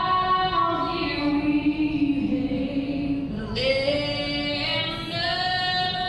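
Music with a woman singing long, held notes that change pitch a few times.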